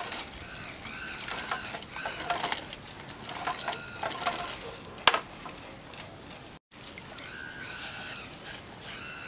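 Hand-driven bamboo pole lathe squeaking in a rhythm of about two rising-and-falling squeaks a second as the spindle is spun back and forth, while a lacquerware piece is sanded on it. Scattered clicks, with one sharp knock about five seconds in.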